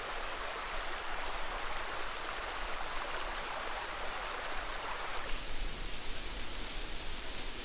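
Steady rushing of a rocky mountain river, an even hiss of fast water. About five seconds in, the sound changes to a thinner, higher hiss with faint irregular ticks.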